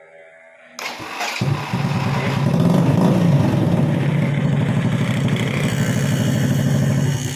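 Motorcycle engine started on the electric starter: a short start-up noise about a second in, then the engine catches and runs steadily, rising a little in pitch for a moment, and cuts off suddenly near the end.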